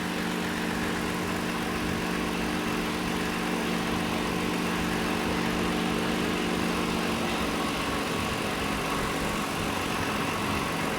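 Toyota Avalon V6 idling steadily. The engine has a reported random, multiple-cylinder misfire.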